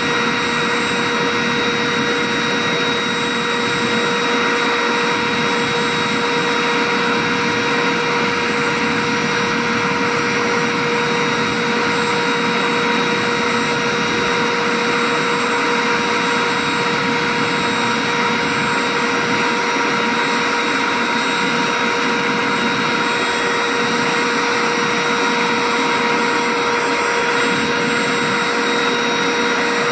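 Pirna GT028 gas turbine engine running at a steady speed: a constant high whine with several fixed tones over a steady rush of air.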